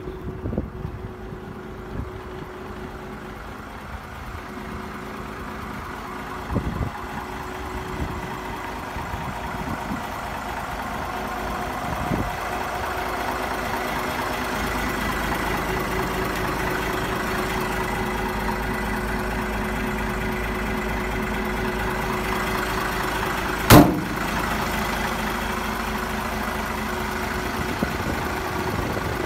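BMY M923A2 5-ton 6x6 truck's Cummins 6CTA8.3 turbo-diesel idling steadily, growing louder over the first half. A single sharp knock late on is the loudest sound.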